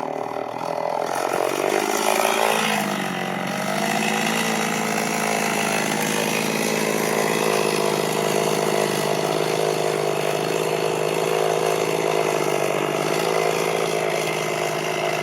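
Two-stroke chainsaw idling steadily after a cut, its note wavering briefly about two to three seconds in before settling.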